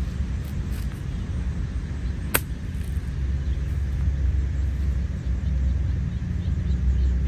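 Wind buffeting the microphone: a steady, uneven low rumble. A single sharp click comes about two seconds in.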